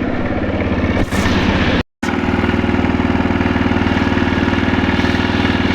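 TVS Raider 125's single-cylinder engine idling with a fast, even ticking rattle, the sign of a very loose timing chain. The sound drops out for a split second about two seconds in.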